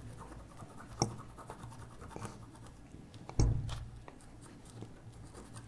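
Small handling noises at a microsoldering bench while the logic board is worked under the microscope: faint clicks throughout, a sharper click about a second in and a louder knock about three and a half seconds in, over a low steady hum.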